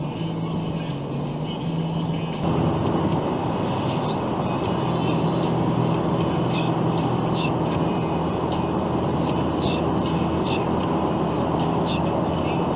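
Steady road and engine noise inside a car cabin driving at motorway speed. It steps up louder about two and a half seconds in, where one clip cuts to the next.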